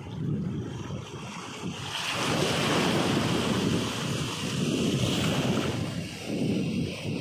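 Sea surf washing in at the shoreline, with wind buffeting the microphone as a low gusty rumble. A wave breaks close by about two seconds in, and its foamy hiss swells and carries on.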